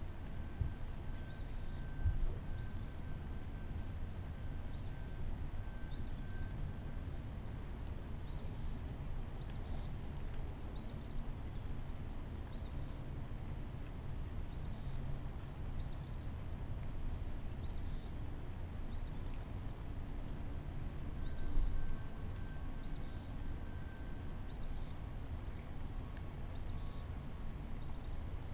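Outdoor ambience: a steady low rumble and a high hiss, with faint, short, high chirps repeating about once a second. A couple of soft low thumps come about two seconds in and again near the end.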